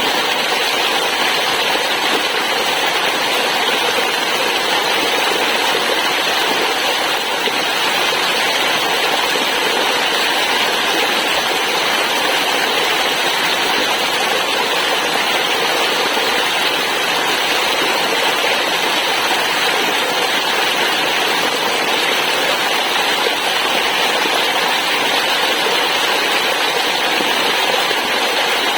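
Waterfall, water falling and rushing in a steady, unbroken roar.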